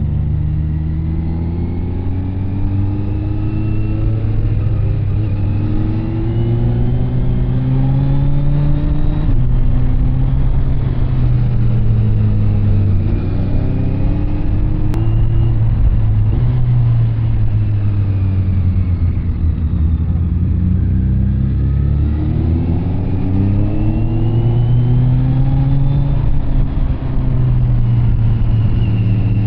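Kawasaki Z900 SE inline-four running through an SC Project CR-T carbon exhaust while being ridden: engine pitch climbs in a run of short rises, dropping back at each gear change, with a steadier cruising stretch in the middle before it pulls through the gears again.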